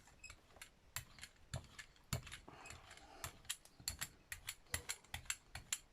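Rubber brayer being rolled back and forth through paint on a gel printing plate. It gives a fast, uneven run of small tacky clicks, about three to five a second.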